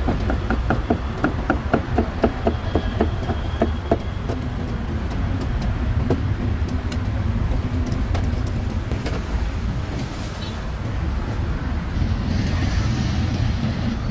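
Cleaver chopping meat on a wooden block in a quick, even run of about four strokes a second for the first few seconds, then only an odd knock, over a steady low street rumble.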